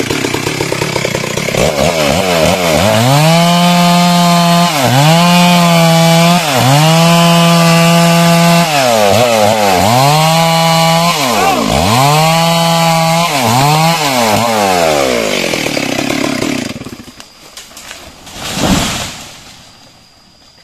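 Stihl MS 382 two-stroke chainsaw cutting a teak trunk at full throttle, its engine pitch dipping and recovering about seven times as the chain bites into the wood, then dying away. About two seconds after the saw stops, a loud rush of noise swells and fades.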